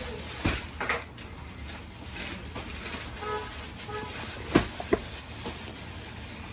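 Handling knocks of a phone and its box against a glass shop counter: a couple of light taps early on and two sharper knocks close together about four and a half seconds in, over steady low background noise.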